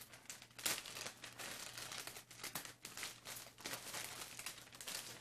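Plastic poly mailer bag crinkling in irregular bursts as it is handled and pulled open by hand.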